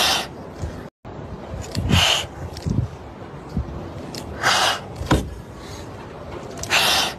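Two frightened kittens hissing defensively in short bursts, about four times, with a few low knocks between. The sound cuts out completely for a moment about a second in.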